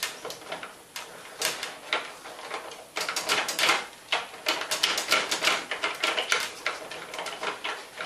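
Raccoon's claws scratching and clicking at a microwave oven's door edge and door-release button, a run of small clicks and rattles that grows busier about three seconds in.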